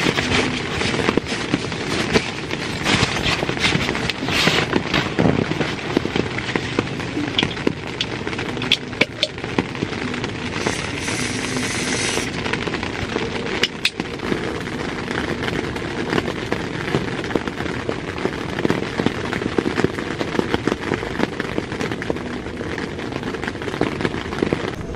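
Heavy rain falling on a tent's fabric: a dense, steady patter of countless drops.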